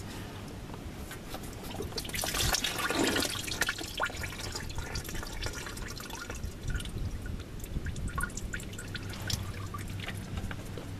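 Engine oil pouring and dripping into a drain pan as the spin-on oil filter is unscrewed. A louder gush comes about two seconds in, then it settles to a trickle of drips.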